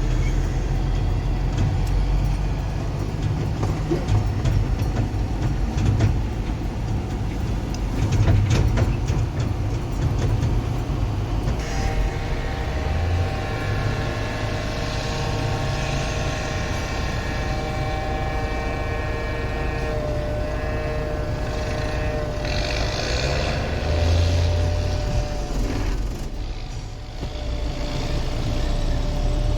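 Heavy farm vehicle engine running steadily with a low rumble. About twelve seconds in, a steady high whine of several tones joins it and fades out a few seconds before the end.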